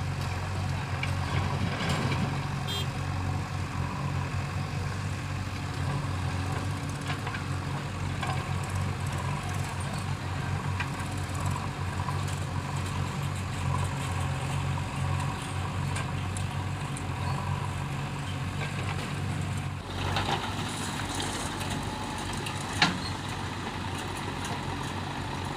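JCB 3DX backhoe loader's diesel engine running steadily while it loads mud. Near the end there is a single sharp knock.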